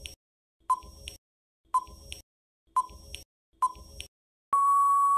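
Quiz countdown timer sound effect: four short, clicky beeps about a second apart, then a long steady beep near the end marking that time is up.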